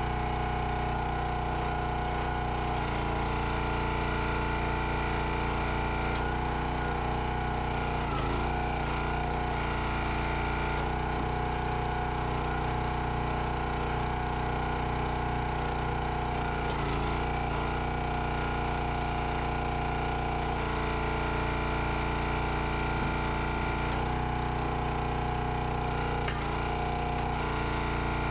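Gas engine of a 25-ton Countyline log splitter running steadily while firewood is split, its note dipping briefly three times about nine seconds apart.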